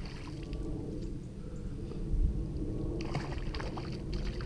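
A small hooked fish splashing at the surface as it is drawn to a landing net, over a steady low rumble on the microphone, with a few more splashes and clicks from about three seconds in.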